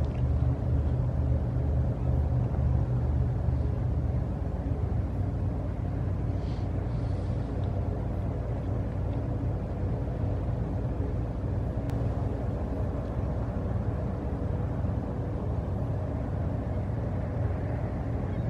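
Offshore crew-transfer catamaran's diesel engines running steadily under way, a constant low rumble with a hum.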